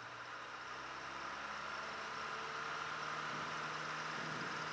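Beechcraft Musketeer's piston engine and propeller at full throttle on the takeoff roll, growing louder with a slowly rising pitch, heard through the cabin intercom.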